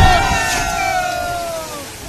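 A person's long, high-pitched shout, held for over a second and falling slowly in pitch before it fades out near the end.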